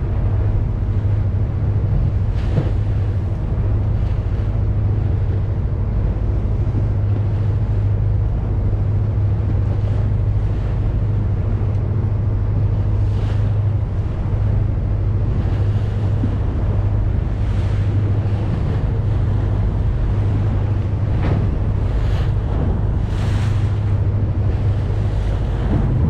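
A boat's engine drones steadily under a constant rush of water and wind, with brief louder swishes every few seconds.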